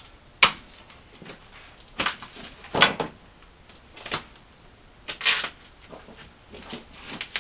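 Plastic strapping bands being pulled off a shrink-wrapped cardboard box while the box is handled: a series of sharp plastic snaps and crinkles, about six in all.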